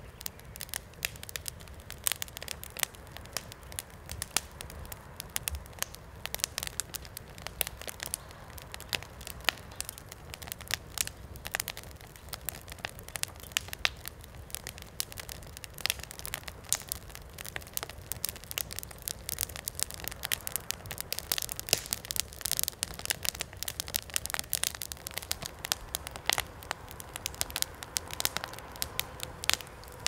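Wood fire crackling and popping, with dense irregular sharp pops over a low steady hiss of flame.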